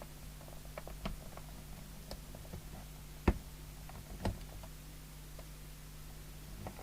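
Small clicks and ticks of hands working at a CB radio's knobs and casing, with two sharper clicks about three and four seconds in, over a steady low mains-type hum.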